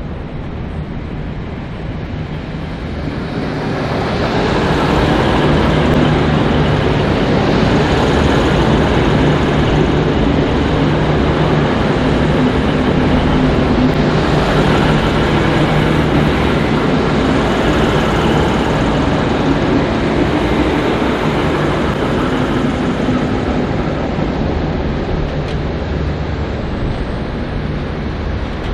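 V/Line VLocity diesel railcar set passing close by, its diesel engines humming under the rumble of wheels on rail. The sound swells about four seconds in, stays loud for most of the pass, then eases a little near the end.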